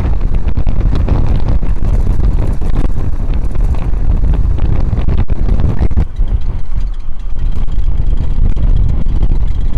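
Wind buffeting the microphone: a loud, uneven low rumble and rush, with no steady engine tone in it.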